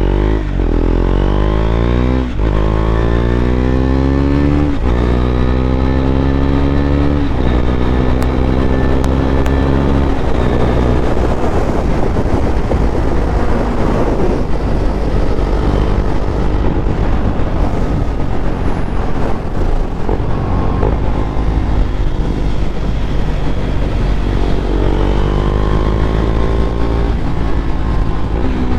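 KTM Duke 390's single-cylinder engine through an Austin Racing aftermarket exhaust, accelerating up through the gears: the note rises and drops back with about four upshifts in the first ten seconds. It then holds a steady cruise under rushing air noise, and climbs again near the end.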